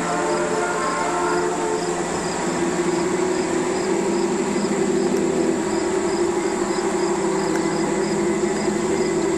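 G-scale model SD45 diesel locomotives running on garden railway track, their motors and wheels making a steady rolling hum that grows louder after about two seconds. Insects chirp faintly, about two times a second, throughout.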